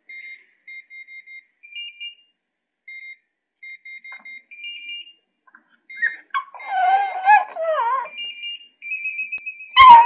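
Digital door-lock keypad beeping from the other side of the door as a code is keyed in one button at a time, a run of short high beeps. In the middle a Chihuahua whimpers in wavering cries. Near the end a long warbling electronic beep sounds, a sharp click follows, and the Chihuahua howls.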